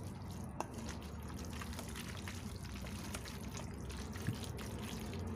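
Wooden spoon stirring and tossing cooked noodles coated in an oil, honey and mustard dressing in a stainless steel bowl: a continuous wet stirring sound with many small clicks of the spoon.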